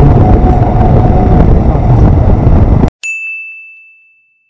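Motorcycle under way, its engine running steadily with wind rumble on the microphone; it cuts off sharply about three seconds in. A single bell-like ding follows, ringing and fading away.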